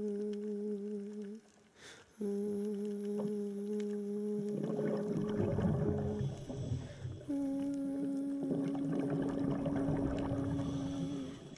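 A person humming long, steady notes, breaking off briefly about a second and a half in and moving to a higher held note about halfway through. A burst of rushing noise sits under the humming in the middle.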